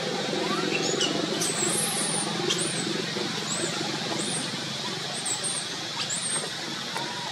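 Baby long-tailed macaque giving a string of short, very high-pitched squeaks, each rising and falling, about eight in all, over a steady low background rumble.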